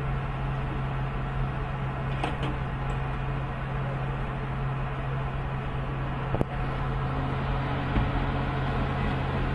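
Heavy diesel engines of Tata Hitachi hydraulic excavators running at a steady, even drone with a deep hum, as the machines hold a load. A single sharp knock about six and a half seconds in.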